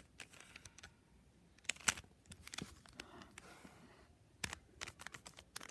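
Faint, irregular plastic clicks of a stickerless 3x3 Rubik's cube whose layers are being turned by hand through a move sequence, the sharpest click about two seconds in.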